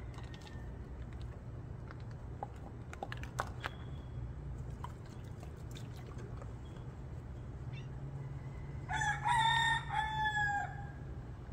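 A rooster crows once, a pitched call of about two seconds with a brief break in the middle, starting near the end. Before it there is a steady low hum and a few light clicks.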